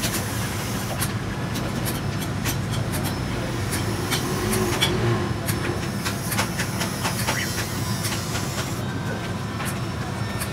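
Cast lead battery grids being handled and stacked in wooden boxes, giving many scattered light clicks over a steady low background rumble.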